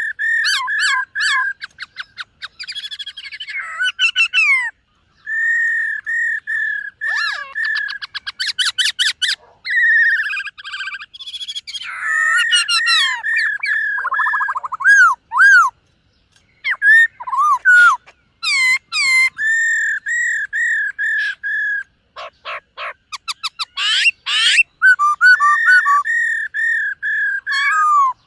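Black-throated laughingthrush singing a long, varied song: strings of clear repeated whistled notes mixed with rapid trills and sliding phrases, pausing briefly a few times.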